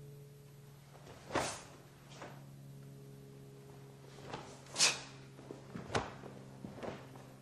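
Faint thuds, knocks and swishes of footwork and a bo staff being swung in a kata, a handful of short sounds with the sharpest knock about six seconds in, over a steady low hum.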